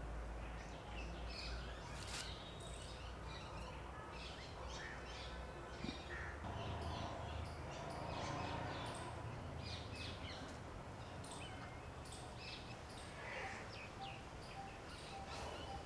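Small birds chirping and calling again and again over a steady low background rumble.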